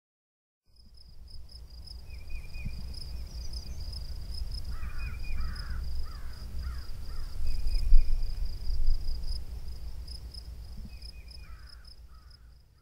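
Night nature sound bed fading in and out: a steady, rapid high chirping of crickets under a low wind rumble that swells toward the middle, with a bird giving runs of short downward-sliding calls, about five in a row midway and a few more near the end.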